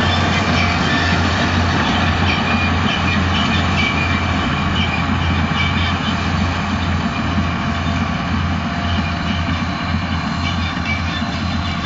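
Claas Ares 816 tractor with a Claas Variant 180 RotoCut round baler running steadily at work, a low engine drone with mechanical rattle from the baler, slowly fading as it moves away.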